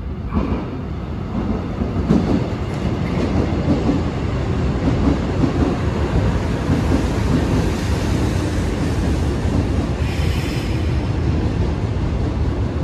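Seoul Subway Line 1 train running on the track: a loud, steady rumble that grows louder over the first couple of seconds. A brief higher hiss or squeal comes through about ten seconds in.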